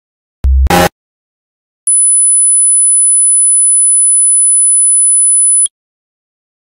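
A short low thump and a brief burst of static, then a steady, very high-pitched electronic sine tone held for nearly four seconds before it cuts off suddenly.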